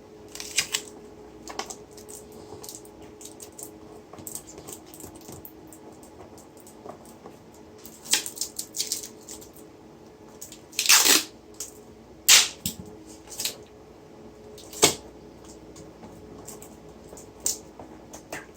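Scattered clicks and knocks, a few loud ones around the middle and about three quarters of the way in, over a steady low hum.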